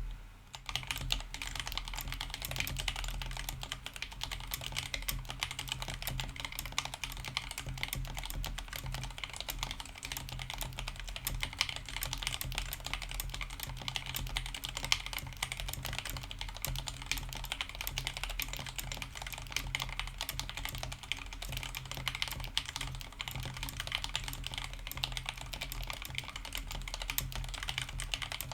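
Steady, fast typing on an Akko 3084 mechanical keyboard modded with lubed and filmed Alpaca linear switches, a PE foam mod, a tape mod and foam between case and PCB. These are changes made to quiet a stock board that was found scratchy and too loud.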